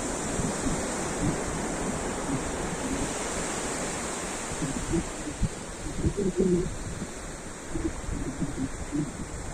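Ocean surf: waves washing onto shore in a continuous rushing hiss that eases a little after the middle.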